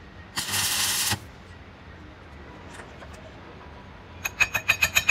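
Stick-welding arc crackling in a short burst of under a second, about half a second in, as a weld bead is laid on the broken pinion gear teeth. From about four seconds in, a fast run of ringing steel-on-steel taps, about eight a second, as the slag is chipped off the fresh weld.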